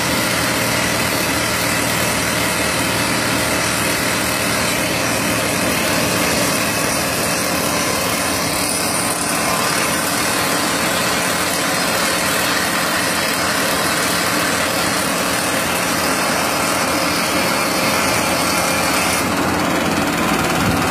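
Stone-crushing plant machinery running steadily, a loud, dense mechanical noise that does not change.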